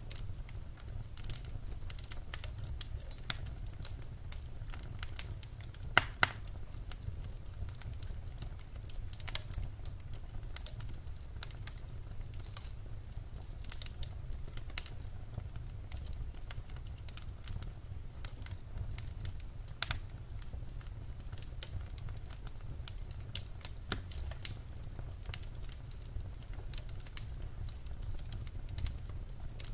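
Wood fire crackling in a rocket stove: irregular sharp pops and clicks over a steady low rumble.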